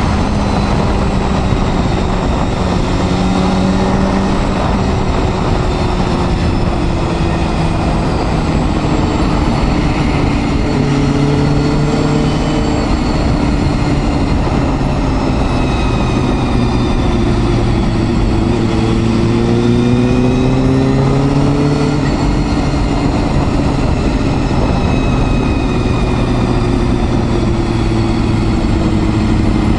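Honda Hornet 250's inline-four engine running under way, its note rising and falling with throttle and gear changes, over a steady rush of wind noise.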